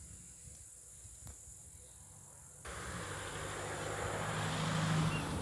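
Quiet outdoor background with a couple of faint clicks. About two and a half seconds in, a motor vehicle's engine hum and noise cut in suddenly, swell louder, and begin to fade near the end.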